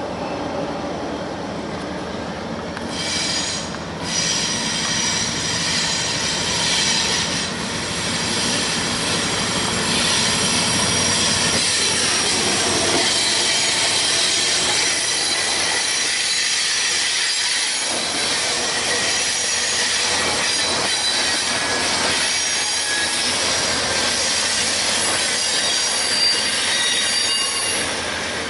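Norfolk Southern diesel freight locomotives approach and pass close by, engines running. From about ten seconds in, the wheels of the passing double-stack train squeal high-pitched on the rails.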